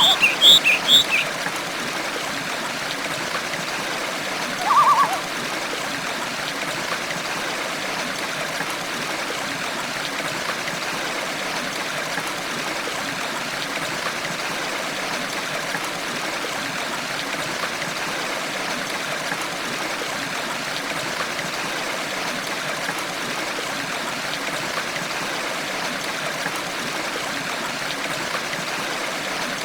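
A stream runs steadily with an even rush of water. A few short bird chirps come in the first second, and one brief call about five seconds in.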